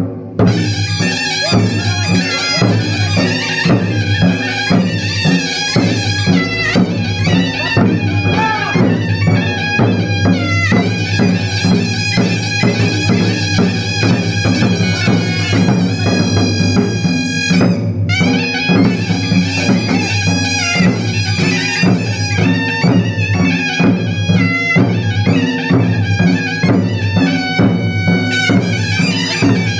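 Dhol drums beating a fast, even rhythm, with a reedy wind instrument playing a wavering melody over a steady low drone.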